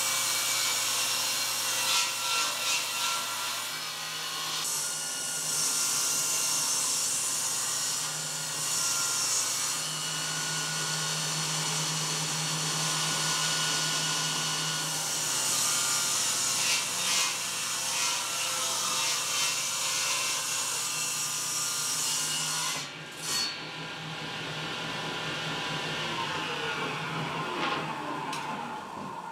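Table saw ripping boards, the blade cutting through the wood over a steady motor hum. Near the end the saw is switched off and the blade spins down, its pitch falling.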